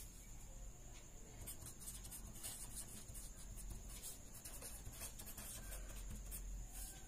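A pen writing on paper: faint, irregular scratching strokes over a low steady hum.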